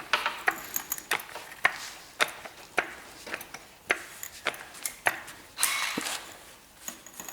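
Hand-tool work on a car's front suspension A-frame: sharp metallic clicks at a steady pace, about two a second, with a short scraping rush just before six seconds.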